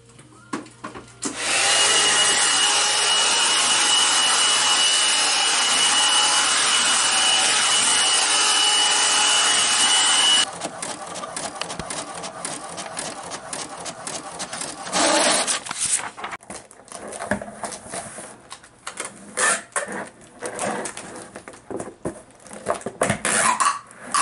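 A handheld hair dryer running steadily for about nine seconds, a high whine over its rushing air, then switched off abruptly. After it come irregular clicks, knocks and rustles from a printer printing a shipping label and a cardboard box being handled and taped.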